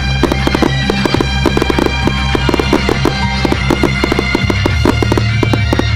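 Fireworks firing, a dense, irregular stream of bangs and crackles, over loud music with sustained droning bass notes that shift in pitch about four and a half seconds in.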